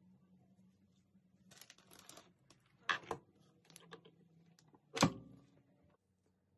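A Ninja Foodi multicooker's lid is handled and shut. There is a short rustle of handling, a few sharp clicks and knocks, and then one loud clunk about five seconds in as the lid closes onto the cooker.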